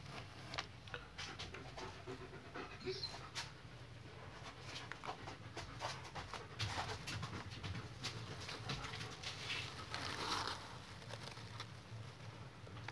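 A dog panting, with scattered small clicks and a brief high squeak about three seconds in.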